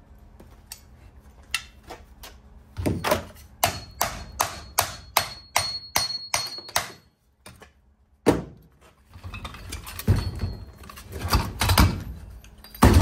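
A hatchet striking the steel casing of an electric motor: a run of quick metal blows, about three a second, with a faint ring, then a few heavier thuds. These are the blows that knock the end cap and internals loose from the casing.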